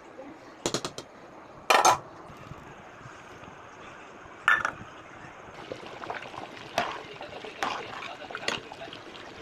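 Kitchen cooking sounds: utensils knocking and clinking against a pot, the loudest strikes about two seconds and four and a half seconds in, with liquid sounds.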